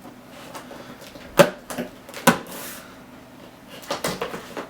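A computer case being unpacked from its cardboard box: a few sharp knocks and thumps of the box and case being handled, with a brief scraping rustle between them.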